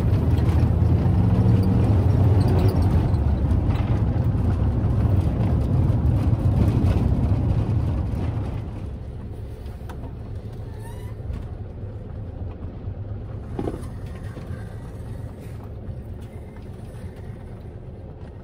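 Air-cooled Volkswagen Kombi's flat-four engine running while the bus drives, heard from inside the cab. About eight seconds in, the sound drops to a quieter, lower running as the bus slows.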